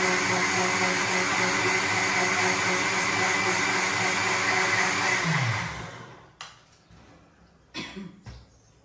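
Electric mixer grinder with a steel jar running at full speed, grinding soaked moong dal with water into batter. It is switched off about five seconds in and the motor winds down, falling in pitch. A few light clinks follow.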